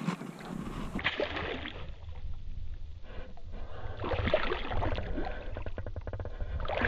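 Water sloshing and splashing right at the microphone as the camera is held at the surface beside a hooked redfish, with a low rumble and scattered knocks from the camera being handled in the water.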